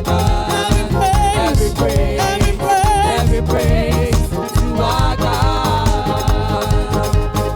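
Upbeat contemporary praise music with a steady dance beat and a wavering melodic lead line over it.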